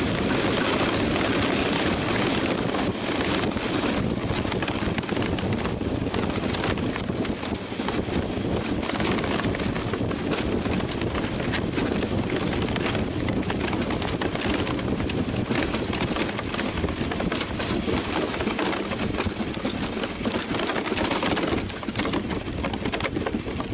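DN iceboat running over the ice at speed: a dense, steady noise of the runners on the ice and the rushing wind. It eases as the boat slows from about 40 to 12 km/h and drops further near the end.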